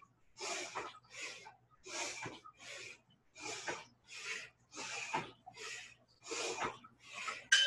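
Forceful, rhythmic Bhastrika (bellows) breaths, about two sharp puffs a second, keeping time with a squat-and-punch exercise. Right at the end a steady electronic interval-timer beep starts.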